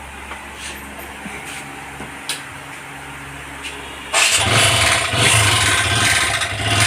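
Motorcycle engine starting abruptly about four seconds in, then running loud and rough, with an abnormal noise that is described as very bad: a mechanical fault inside the engine.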